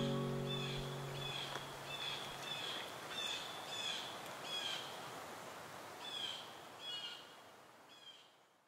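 The last held notes of a soft instrumental piece die away while a small bird chirps over and over, a short high call every half second or so. Everything fades out steadily toward the end.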